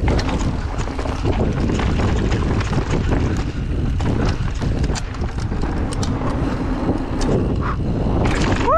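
Mountain bike riding fast down a dry dirt trail. Wind buffets the microphone over the crunch of tyres on dirt and the rattle of the bike, with many sharp clicks and knocks as it runs over roots and rocks. Right at the end a wavering shout begins.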